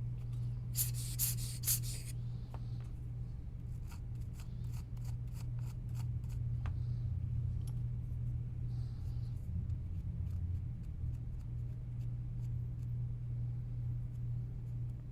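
Small plastic parts of a PS5 controller's analog stick module being handled and worked on for cleaning: a few short scraping strokes about a second in, then a run of light clicks and taps, over a steady low hum.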